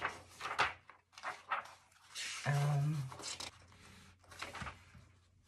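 Sheets of paper rustling and crinkling in a series of short handling noises as a large printed poster is folded up and a paper zine booklet is opened. A brief murmured voice sound comes about two and a half seconds in.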